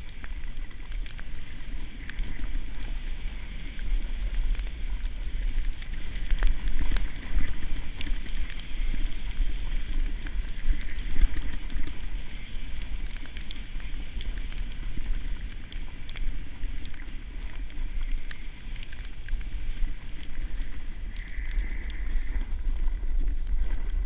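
Wind buffeting a GoPro action camera's microphone as it rides fast downhill on snow, a constant low rumble, with the hiss and scattered ticks of sliding and scraping over the snow.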